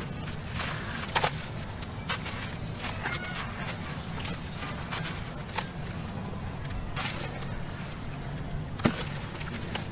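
Dry sand-cement chunks crumbling and crunching in bare hands, with crumbs and powder falling into a plastic tub, over a steady low rumble. Scattered sharp crackles come through, the loudest about a second in and near the end.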